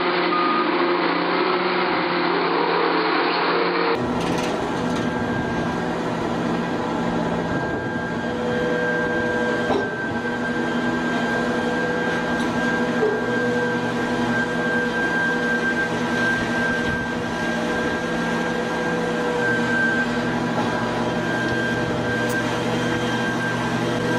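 Heavy machinery running with a steady mechanical hum and whine. The sound changes abruptly about four seconds in, then holds steady.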